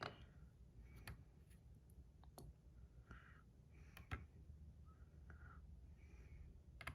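Quiet handling of small metal fidget coins: about five faint, sharp clicks with soft rubbing between them. The sharpest click comes about four seconds in.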